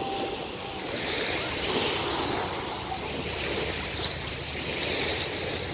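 Small ocean waves breaking and washing around the shins in shallow surf, the hiss swelling and fading with each wave.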